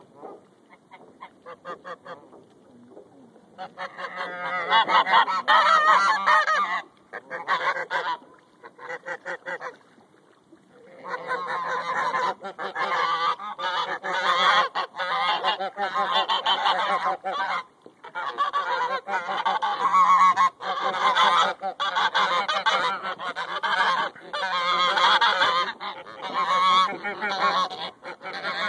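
Greylag geese honking: soft, quick calls at first, then loud, rapid, overlapping honking from about four seconds in. After a brief lull about ten seconds in, the honking carries on almost without pause.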